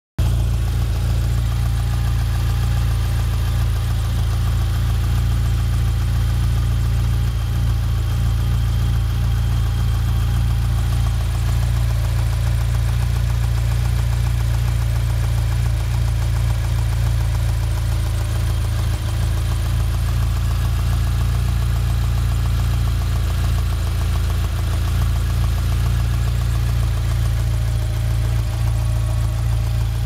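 Mitsubishi 4G63 DOHC 16-valve inline-four engine idling steadily, with a noise that the owner finds strange and cannot place.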